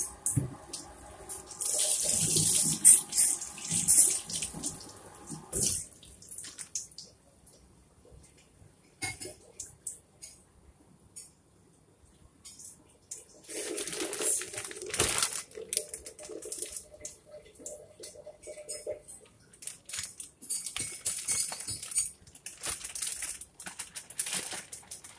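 Kitchen tap running into a sink, shut off about six seconds in. Light clinks and clatter follow, with another stretch of running water a little past the middle.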